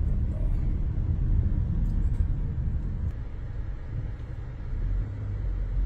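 Car road and engine noise heard from inside the moving car's cabin: a steady low rumble that eases off a little about halfway through, then picks up again.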